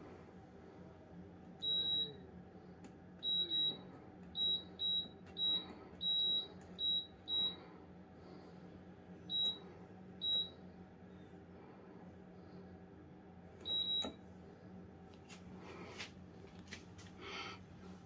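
Washing machine control panel beeping as the program dial is turned: about a dozen short, high beeps at uneven intervals, one for each setting the knob passes, followed by a few soft clicks near the end.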